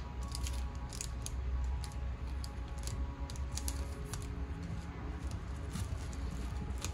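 Light, irregular clicks and taps of unboxing packaging being handled, over a low steady hum.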